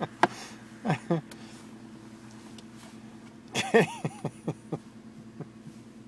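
Short voice sounds without words, twice: a brief one about a second in and a longer, gliding one just past the middle. They come over a steady low hum in a car cabin, with a few light clicks.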